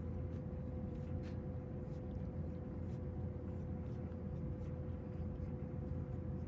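A steady low hum with a faint constant tone, from a running room appliance, with a few faint soft clicks of a cat licking its paw as it washes its face.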